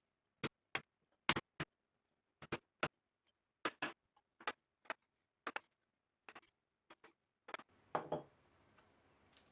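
Sharp wooden taps and knocks at irregular intervals, singly and in pairs, from hand tools working wood. A heavier, longer knock comes about eight seconds in.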